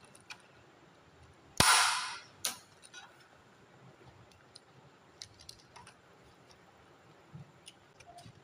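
A Focus miniature circuit breaker snapping onto a metal DIN rail in a plastic consumer-unit enclosure: one sharp, loud click about one and a half seconds in, a smaller click just under a second later, then faint scattered plastic ticks and taps.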